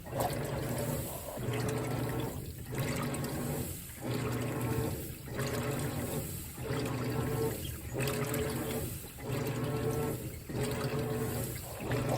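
Whirlpool WTW4815EW1 top-load washer agitating: the motor hums and the water sloshes as the single-action agitator swings, with a brief dip between strokes about every 1.3 seconds.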